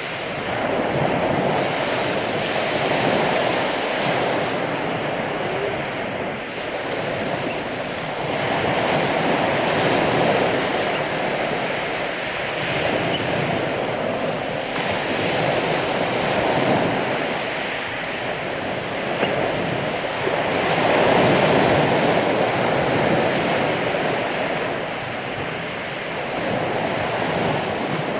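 Ocean waves breaking and washing on a beach, surging and easing every few seconds, with some wind buffeting the microphone.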